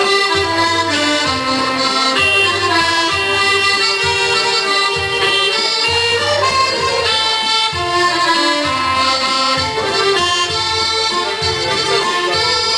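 Accordion playing a dance tune, sustained chords and melody notes over a bass line of repeated low notes.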